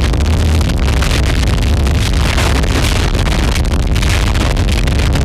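Harsh noise music: a loud, dense wall of distorted static over a heavy low rumble, its crackling texture shifting constantly with no beat or melody.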